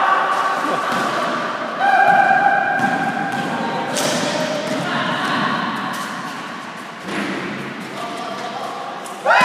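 Indoor basketball game in a hall: long held pitched tones come and go, one sliding sharply upward near the end, with a single sharp thud about four seconds in.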